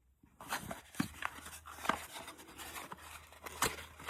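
Plastic packaging and a plastic vacuum attachment being handled: scattered clicks and crinkly rustles as the crevice combo tool is unwrapped, after a brief silent moment at the start.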